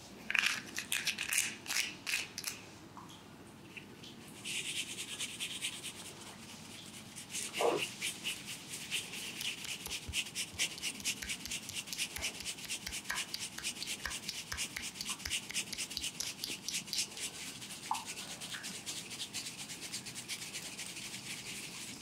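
Bristled scalp-massage brush scrubbing through hair in a fast run of scratchy strokes, several a second, starting about four seconds in. Before it, a few scattered crackling rubs.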